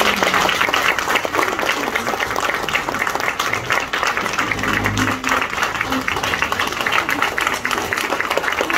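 Audience applauding: many hands clapping steadily after a speech, with a voice or two in the crowd about halfway through.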